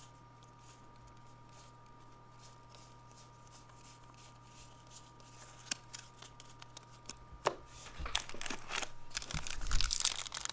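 Quiet handling of a stack of trading cards with a few soft clicks, then from about eight seconds in the louder crinkling and tearing of a foil jumbo-pack wrapper being ripped open.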